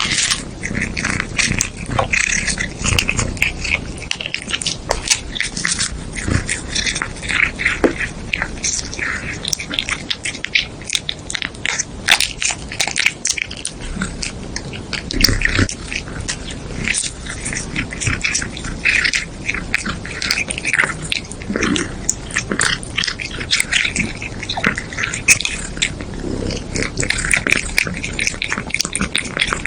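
Pet animal sounds: many short clicks and snaps with repeated higher-pitched noises.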